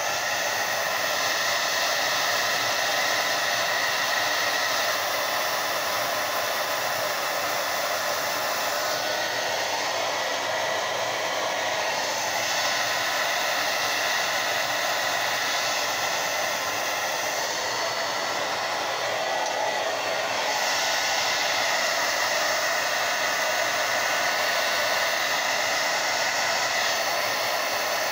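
Handheld hair dryer blowing steadily, drying a mustache, its hiss shifting slightly now and then as it is moved about.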